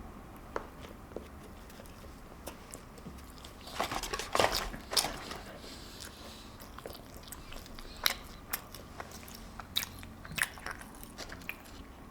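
Close-up chewing and crunching of fast food, with scattered small crunches and a louder burst of crunchy bites about four seconds in.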